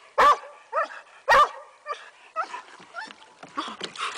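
A dog barking excitedly: three loud, sharp barks in the first second and a half, then a run of shorter, quieter yips and whines.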